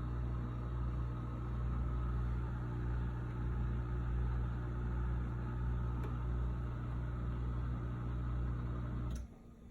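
Samsung DW80K7050 dishwasher's motor running with a steady low hum, then cutting off abruptly near the end.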